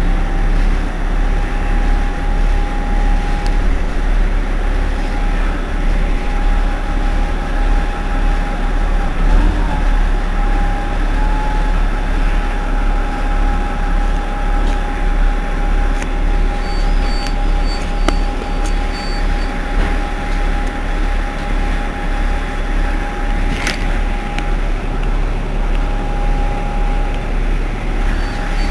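Irisbus Citelis 18 articulated city bus standing with its engine idling: a steady low rumble with a constant whine above it. A rapid run of short, high beeps comes in for a few seconds past the middle and starts again at the very end.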